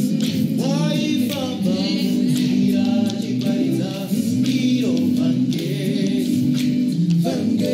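Male a cappella group singing a gospel song live, several voices holding low harmony notes under a higher lead voice that glides and moves.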